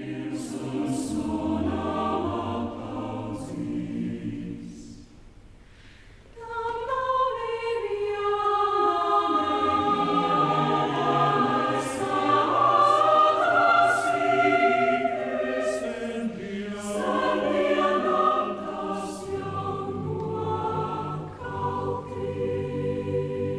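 Mixed choir of women's and men's voices singing. A phrase fades down about five seconds in, and the choir comes back in louder and fuller about a second later.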